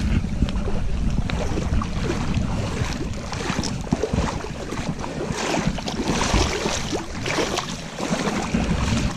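Hooked coho salmon splashing in shallow river water as it is drawn in to the bank, with wind buffeting the microphone.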